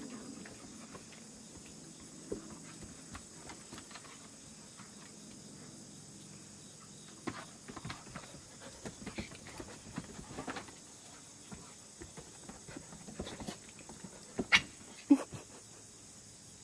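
A pit bull and a raccoon play-wrestling: quiet scuffling, with scattered clicks and rustles of paws and claws on the boards and rug. Near the end come a couple of short, louder sounds.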